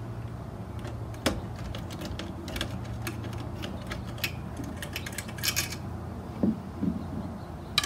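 Irregular light clicks and a few soft knocks as hands handle the Geonics EM-31 MK2's console and boom, with a short run of rapid clicks about five seconds in.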